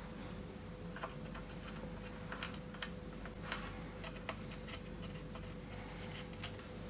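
Soldering a wire onto an LED chip's pad: about half a dozen faint, scattered small clicks and ticks from the iron and the wire being worked, over a low steady hum.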